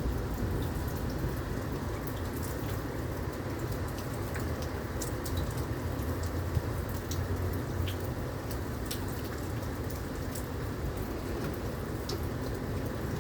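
Heavy rain pouring steadily, with scattered sharp drop ticks close by.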